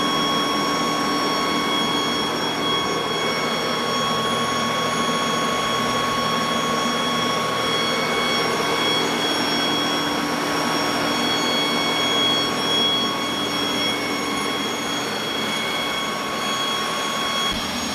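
Pierce fire truck's diesel engine and fire pump running at high throttle, pumping about 1550 gallons a minute at 200 psi discharge pressure: a loud, steady drone with high whines.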